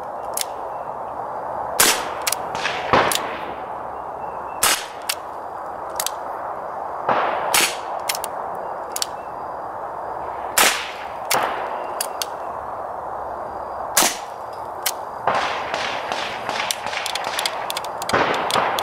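Suppressed M1895 Nagant revolver firing subsonic 7.62×38mmR rounds into dirt: a string of sharp, quiet cracks, a second to a few seconds apart, with smaller metallic clicks between them. The revolver's gas-seal cylinder and the suppressor keep each shot down to a cap-gun-like pop.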